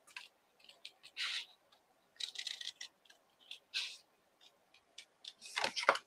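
Small craft scissors fussy-cutting cardstock around a stamped flower image, a series of short snips with pauses between them, the loudest near the end.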